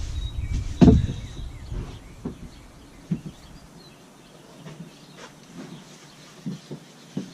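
Lathe parts and packaging being handled: a heavy thud about a second in, followed by a few scattered light knocks.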